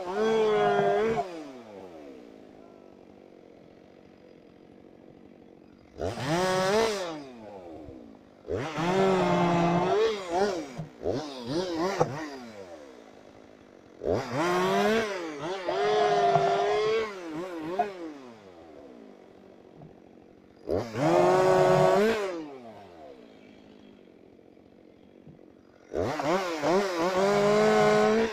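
Two-stroke chainsaw cutting in short bursts, revved up hard for one to four seconds at a time, about seven times, and dropping back to a quiet idle between cuts.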